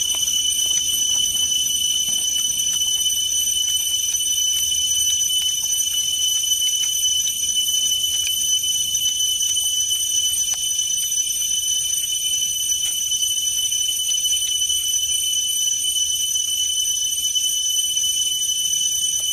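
Steady, high-pitched drone of an insect chorus, several constant tones without a break, with faint clicks and smacks of a person chewing and tearing boiled chicken by hand.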